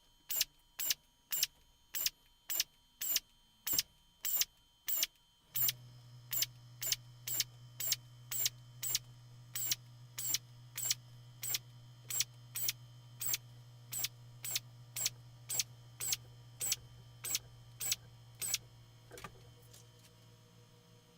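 An air drill drilling a row of rivet holes in the aluminium flaperon spar: short, sharp drill bursts in a rapid, even series of about two a second that thin out near the end. A low steady hum joins about five seconds in.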